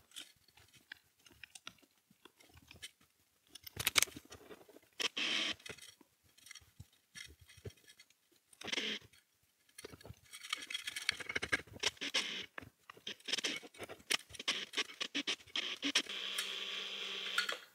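Scattered clicks and scratches of hands handling a cordless drill with an acrylic coil-winding jig in its chuck and enamelled copper wire. Near the end comes a steady run of about two seconds, the drill spinning the jig to wind the wire onto the coil.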